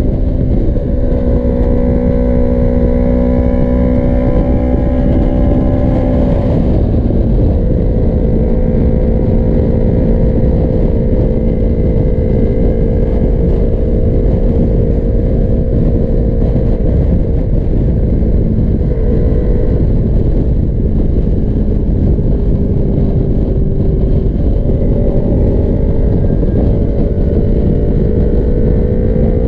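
Sport motorcycle's engine running steadily at highway cruising speed, heard from the rider's seat under heavy wind rumble on the microphone. The engine note drops about six seconds in and climbs slowly again near the end.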